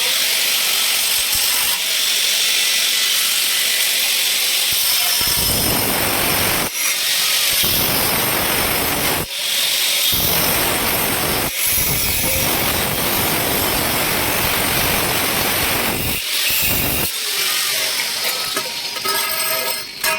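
Power tool working metal in long loud stretches. For the first few seconds it is a high hiss. From about five seconds in it runs heavier and fuller, with short breaks, then returns to a high hiss near the end.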